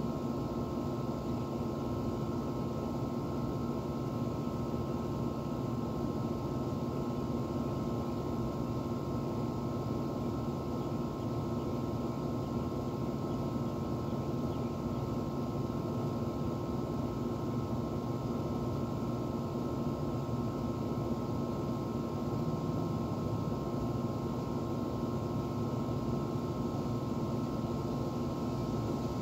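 Outdoor air-conditioner condenser unit running: a steady, unchanging hum with a faint, higher steady tone over it.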